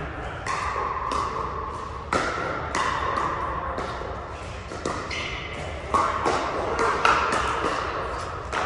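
Pickleball paddles striking a hard plastic ball in a doubles rally: a sharp pock roughly every second, each one ringing on in a large hall.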